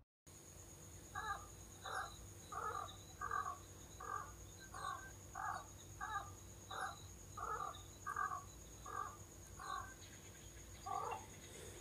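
A bird calling in a long, even series of short harsh calls, about three every two seconds, then one more after a short pause near the end.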